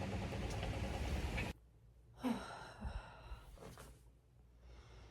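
Steady outdoor noise with a low hum that cuts off abruptly after about a second and a half, giving way to a quiet room where a soft breathy sigh comes about two seconds in, followed by faint breaths.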